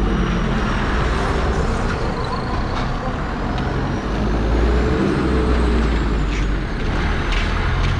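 Street traffic with a heavy vehicle's engine running close by: a loud, steady low rumble.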